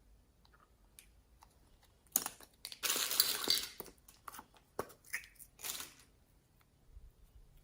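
Crackly crushing and crinkling handling noises of slime-mixing materials: a dense crackle from about two seconds in, then scattered crunches and clicks.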